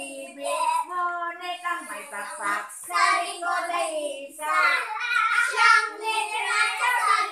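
Young children singing a children's song together, phrase after phrase.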